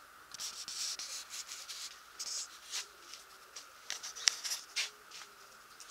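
Faint, irregular rustling and scraping noises with a few sharp clicks, the loudest a little past four seconds in, over a low steady hiss.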